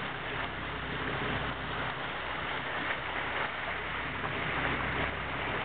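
Fishing boat under way at trolling speed: a steady engine hum mixed with wind on the microphone and water rushing in the wake.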